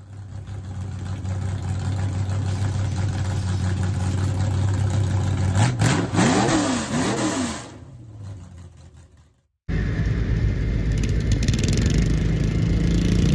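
An engine idling steadily, then revving up and down in several quick blips before fading out to a brief silence. After a cut, a garden pulling tractor's engine idles steadily.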